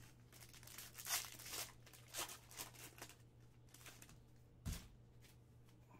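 A Panini Contenders football card pack being torn open, its foil wrapper crinkling in a run of quick tears and rustles, then a single thump a little before the end.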